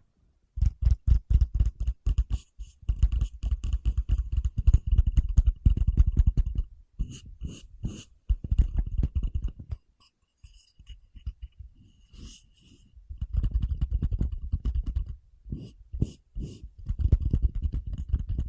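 Close-miked ASMR tapping and knocking: rapid, irregular flurries of light taps on a surface, with a brief pause about ten seconds in.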